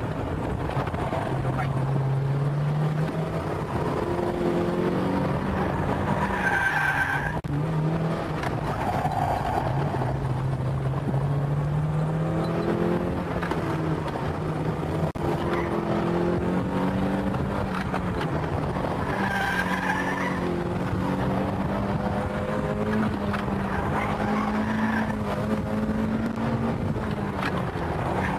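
Car engine, heard from inside the cabin, revving hard through bends, its pitch climbing and dropping back again and again with gear changes and lifts. Tyres squeal twice as the car slides, about 7 s and 20 s in.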